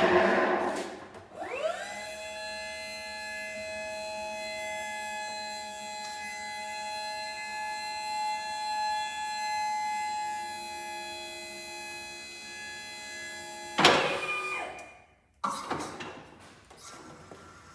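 Hydraulic pump motor of a Jungheinrich EJC110 electric pedestal stacker spinning up with a rising whine, then running with a steady whine as it lifts the forks. Near the end comes a louder rushing noise for about a second that cuts off sharply, then a shorter one.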